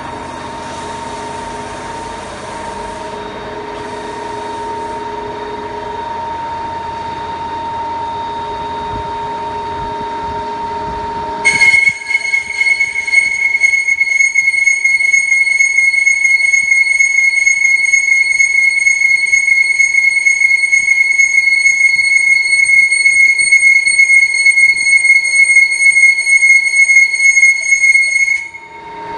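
Pipe weld-bevelling machine running with a steady motor hum. About eleven seconds in, the cutter engages the pipe and a loud, high-pitched steady squeal takes over, lasting until near the end.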